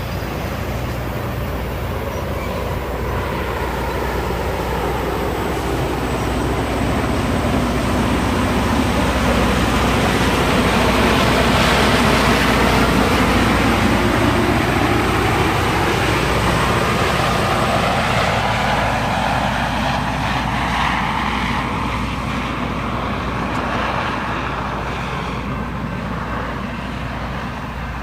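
LORAM rail grinder working along the track: its engines and grinding stones on the rail make a loud, continuous grinding noise. The noise builds to a peak about twelve seconds in as the machine passes close, then slowly fades.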